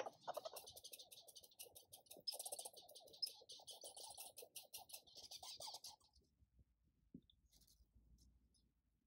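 Faint red squirrel chatter: a rapid rattling call of quick clicks that goes on for about six seconds, then stops.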